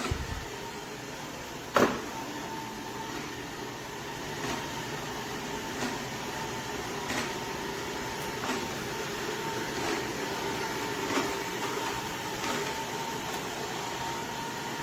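Shark ION R75 robot vacuum running: a steady motor hum with a thin whine, a faint tick about every second and a half, and one sharper knock about two seconds in.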